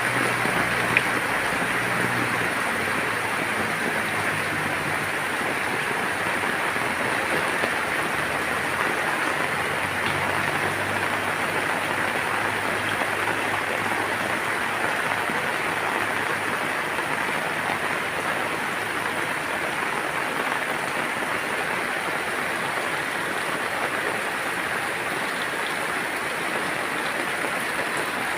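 Steady rain falling on garden plants, an even hiss without a break. A faint low hum underneath fades out about twenty seconds in.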